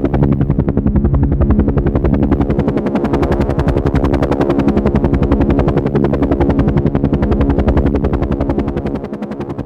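Helicopter in flight: the rotor chops in a fast, even beat over a steady engine tone, dipping slightly in loudness shortly before the end.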